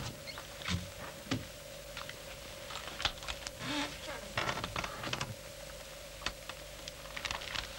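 Soft footsteps and rustling of clothing and a cloth-wrapped bundle being carried, with scattered light knocks and clicks, over a steady faint hum.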